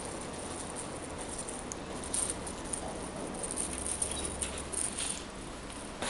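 Light rustling and a few soft ticks of a Yorkshire terrier puppy scampering through grass with a toy, over a steady hiss.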